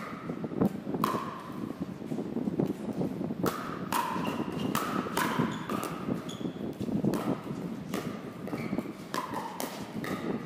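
Pickleball paddles striking a plastic ball during a rally: a string of about ten sharp pocks with a short ring, unevenly spaced, some in quick pairs.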